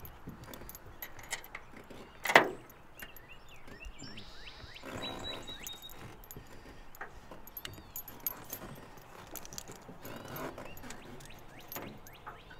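A dog's metal collar tag and leash clip jingle lightly, with scattered small clicks and knocks as the young Vizsla moves about the boat deck. One sharp knock about two and a half seconds in is the loudest sound.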